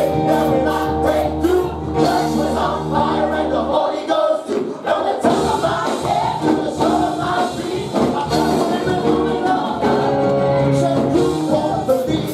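Gospel praise music: a choir singing over held keyboard chords and a low bass line, with a steady beat. The low notes drop out briefly about four seconds in and then return.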